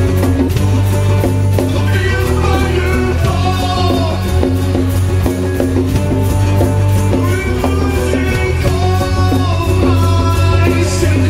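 Live band playing an acoustic rock song: acoustic guitar, bass and electric guitar over a steady shaker-like beat, with a melodic line sung over it.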